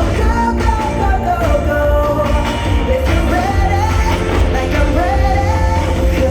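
Show soundtrack of a pop song with a sung melody over sustained chords and a steady heavy bass, played over loudspeakers.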